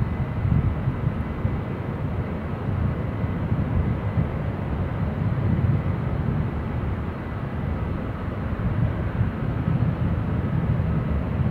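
Steady low rumble inside a Boeing 757-300's cabin as the airliner taxis to the gate after landing, with a faint steady high tone over it.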